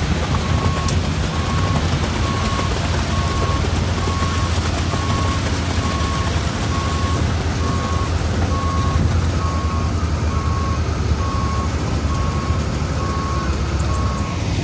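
A heavy construction vehicle's reversing alarm beeping steadily, about one beep a second, over the continuous low rumble of its engine; the beeping stops near the end.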